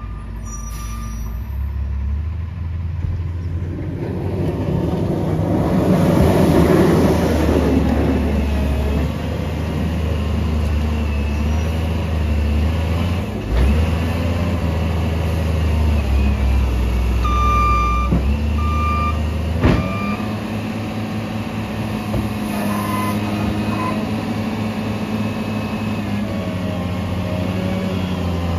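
Heavy diesel equipment running close by: a wheel loader's engine revs up and down as it works its bucket, over the steady running of a rear-loader garbage truck. A backup alarm beeps a few times about 17 seconds in, and a single sharp knock comes around 20 seconds.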